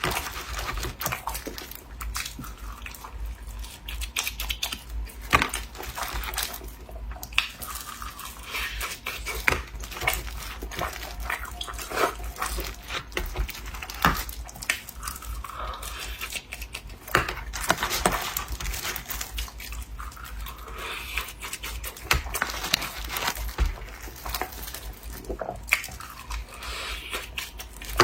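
Close-miked eating sounds: a person chewing a sweet glutinous rice cake, with wet mouth smacks and many small irregular sticky clicks.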